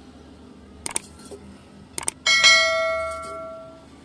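Metal struck with a hammer: a couple of light taps, then a hard blow that leaves the piece ringing with several clear tones, fading away over about a second and a half.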